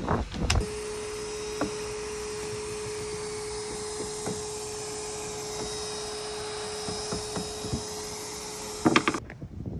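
A power tool running steadily at a constant pitch with a hiss, cutting off abruptly near the end, with a few knocks around its start and stop.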